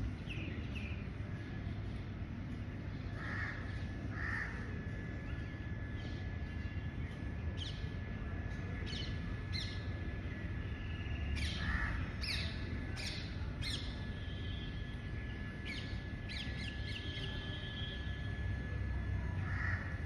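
Crows cawing a few times, with short bird chirps bunched mostly in the middle, over a low steady outdoor rumble.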